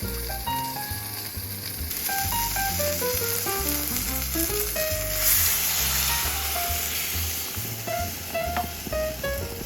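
Background music with short plucked notes and a bass line, over food sizzling in a frying pan; the sizzle swells about five seconds in.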